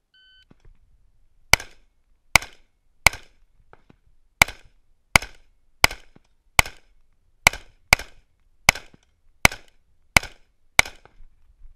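A shot timer's short start beep, then thirteen AR-15 rifle shots fired at a steady pace, mostly about three-quarters of a second apart, with one longer pause after the third shot.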